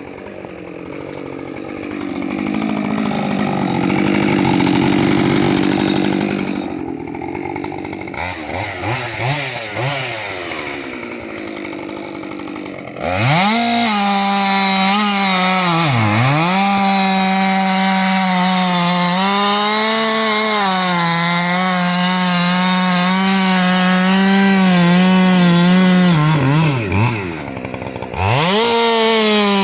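Husqvarna two-stroke chainsaw cutting wood. For the first dozen seconds the engine note is rough and wavering, then it runs hard at high throttle, with the pitch dropping and climbing back twice.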